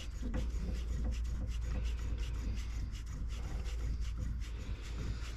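Hand tools working on a disc brake caliper: irregular metallic scraping and clicking as the caliper is refitted and its bolt done up over new rear brake pads.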